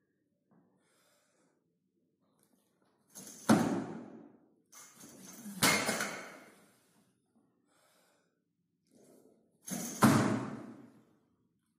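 Heavy thuds from a snatch with a 150 kg barbell: the lifter's feet and the loaded bumper plates hitting the lifting platform. There are three loud impacts, each ringing on briefly: one about three seconds in, another two seconds later, and a third near the end as the bar is pulled up and he drops under it.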